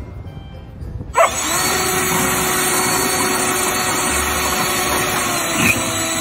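Leaf blower running steadily, a loud rushing blast of air with a steady motor tone in it. It cuts in abruptly about a second in, after a quieter start. There is a brief sharp sound near the end.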